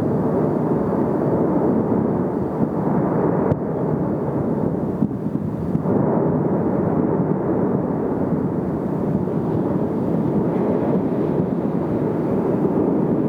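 Cumbre Vieja volcano erupting: a continuous loud rushing noise from the vent, with brief dips in loudness around four and six seconds in.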